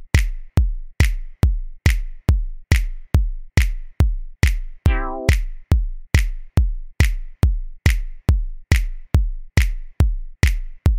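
Electronic dance music from a drum machine. A steady kick drum that drops in pitch lands a little more than twice a second, with hi-hat ticks between the kicks. A short synth chord sounds about five seconds in.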